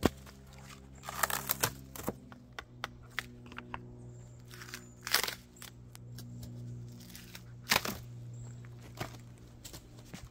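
Scattered sharp crackles and crunches of dry cedar bark and wood chips being handled and stepped on, several louder cracks among them, over a quiet steady music bed.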